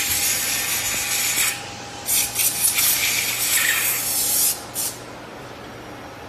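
Loud hissing, rasping noise that breaks off about one and a half seconds in, comes back in several abrupt bursts, and stops for good around the five-second mark, leaving a quieter steady background with a faint constant hum.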